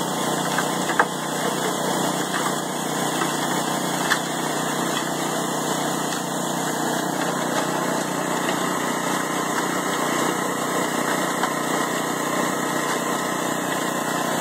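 Vintage Jaeger cement mixer running: its small single-cylinder engine runs steadily while the drum turns a batch of wet concrete mix. Two sharp knocks come in the first few seconds.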